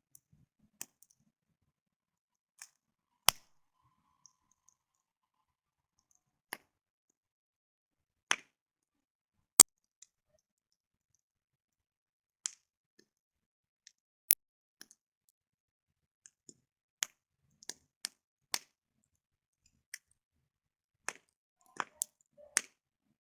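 Burning wood crackling in a campfire: sharp, irregular pops and snaps, roughly one a second, some much louder than others, with little sound between them.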